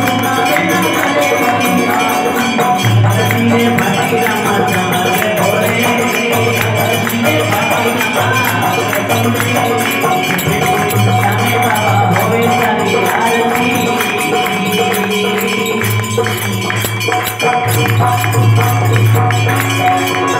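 Devotional aarti music playing steadily, with a low bass line and continuous jingling percussion.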